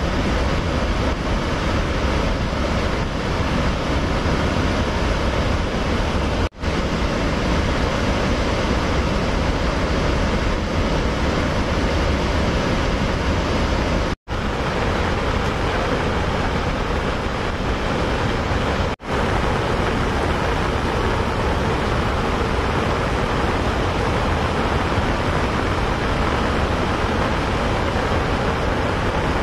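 Floodwater rushing through the open spillway gates of Rawal Dam, a loud steady rush with a deep rumble underneath. It cuts out for an instant three times.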